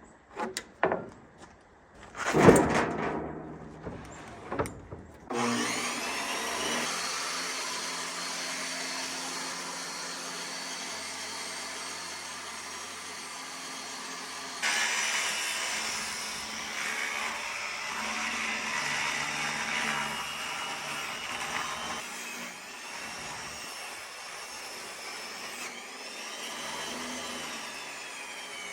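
A few knocks and one loud thump, then a power tool's motor starts about five seconds in and runs steadily for over twenty seconds, its whine shifting in pitch and growing louder about halfway through.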